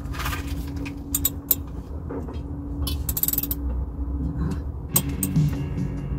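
Socket ratchet clicking in short quick runs as it is swung back and forth on a bolt at the back of a washing machine, with a few sharp metal knocks of the tool. The bolt is too tight to break loose.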